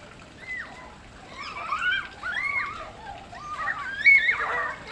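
Children shouting and squealing in high voices over splashing water, several short calls with the loudest about four seconds in.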